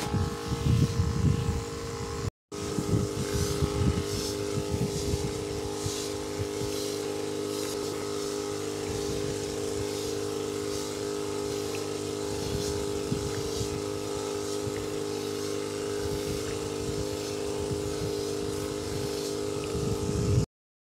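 Motorized knapsack sprayer's pump running with a steady hum while spraying pesticide through its lance. Irregular low rumbles of wind or handling on the microphone, strongest in the first two seconds; the sound drops out briefly about two seconds in.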